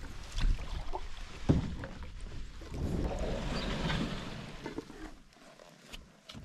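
A wooden canoe being paddled: two short knocks against the hull, then a swish of water from a paddle stroke about three seconds in, fading away near the end.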